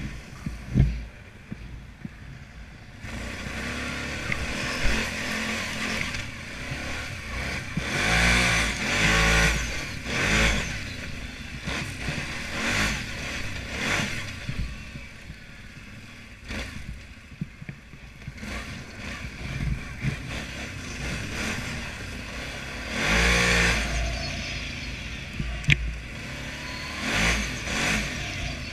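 ATV engine riding under throttle, revving up and easing off in repeated surges, with the pitch rising on each burst of throttle. A single sharp click comes near the end.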